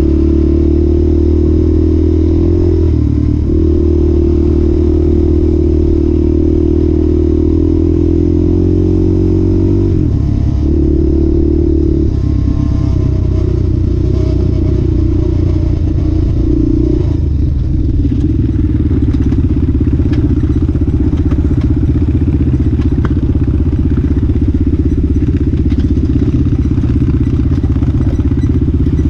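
ATV engine running steadily under way, heard close up from the machine carrying the camera, its pitch stepping up and down a few times as the speed changes. From a little past halfway it turns rougher, with rattling and clicking over the rocky trail.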